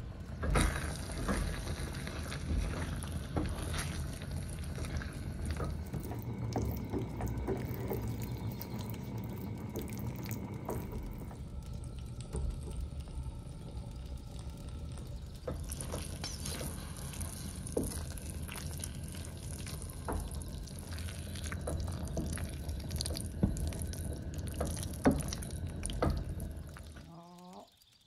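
Thick tomato risotto being stirred in a pot to work in grated cheese and mozzarella: wet, sticky squelching with scattered clicks and knocks of the spoon against the pot.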